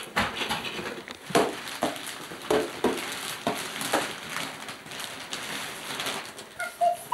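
Christmas gift-wrapping paper crinkling and rustling in irregular crackles as wrapped presents are handled and pulled at. A short high voice sound comes near the end.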